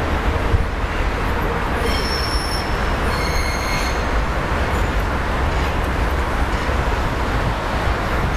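Steady rumble of city road traffic, with two short high squeals about two and three seconds in.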